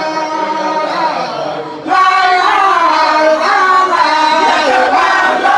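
A large group of voices chanting a Sufi zikr together. The chant rises sharply in loudness about two seconds in.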